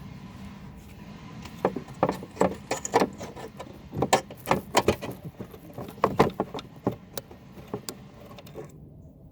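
Irregular run of sharp metallic clicks, clinks and knocks from mower parts and tools being handled during reassembly. They come thick from about a second and a half in, then thin out near the end.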